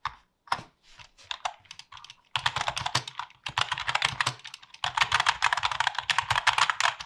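Typing on a mechanical keyboard: a few separate key clicks, then from about two seconds in a fast run of clattering keystrokes with a couple of brief pauses.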